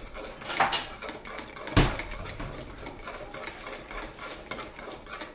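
Kitchen clatter of dishes and cutlery being handled: a short clatter just after the start and one sharp knock a little under two seconds in, then quieter handling sounds.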